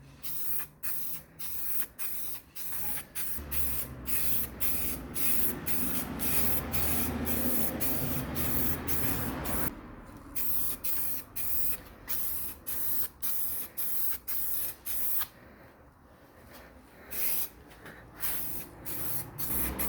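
Aerosol spray can hissing in many short bursts, with one longer unbroken pass of about six seconds in the middle and a brief pause about three quarters through: a light first coat of primer being sprayed.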